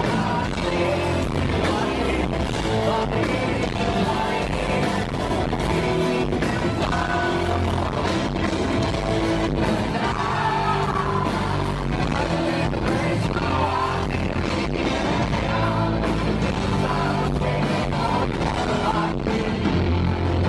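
Live rock band playing, with a male lead vocal sung over drums and bass, heard loud and dense from within the audience.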